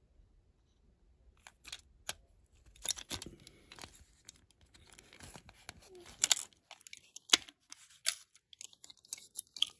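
Scattered sharp clicks and short scrapes of a diecast toy car being handled close up, its plastic base plate and axles pressed into place against the metal body. The sounds start about a second and a half in and come in small clusters.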